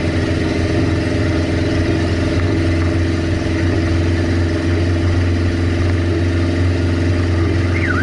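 Car engine with no exhaust system running at steady revs, a loud, even drone heard from inside the cabin with the window down. Near the end a car alarm starts warbling.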